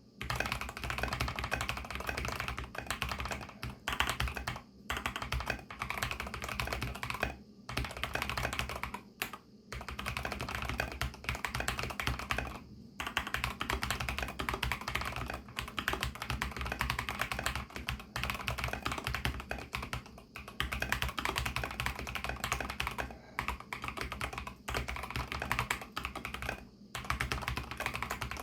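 Fast, continuous typing on an mStone Groove T mechanical keyboard with MMD Milky switches, fully lubed and fitted with silicone dampening foam, and MA-profile keycaps. Brief pauses come every few seconds.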